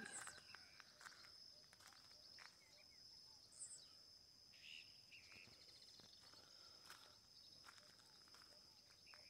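Near-silent countryside: a steady high-pitched insect drone, with a couple of brief faint chirps about midway.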